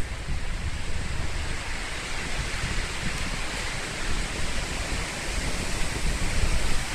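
Strong gusty storm wind blowing through forest treetops: a steady rushing hiss, with low buffeting of the wind on the microphone and a stronger gust near the end.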